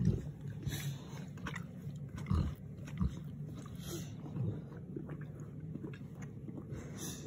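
Boerboel puppy making low vocal sounds while it mouths a bone on a concrete patio, with a few knocks, the loudest about two and a half and three seconds in.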